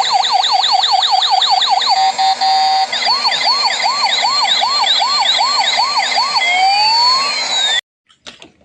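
Electronic toy siren. It starts as a fast warbling wail of about four sweeps a second, changes about three seconds in to a slower rising whoop of about one and a half a second, then makes one long glide and cuts off suddenly near the end.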